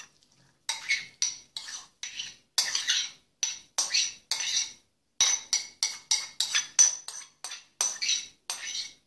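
Metal spoon clinking and scraping against a ceramic bowl as the egg filling is scooped out onto the pastry: a steady run of short clinks, about three a second, starting a moment in.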